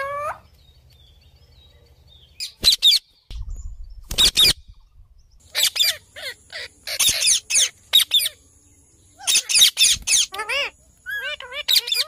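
Indian ringneck parakeets calling: a string of loud, sharp screeches in separate bursts, some short and some drawn out, and near the end a quick run of short, repeated chirps that rise and fall.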